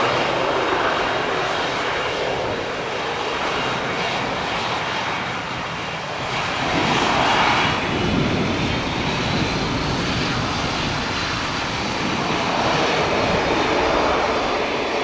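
Pilatus PC-12 single-engine turboprop on its landing rollout: a steady engine whine over propeller noise, swelling about seven seconds in.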